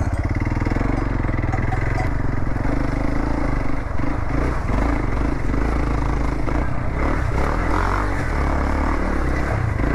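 Single-cylinder motorcycle engine running steadily as the bike is ridden.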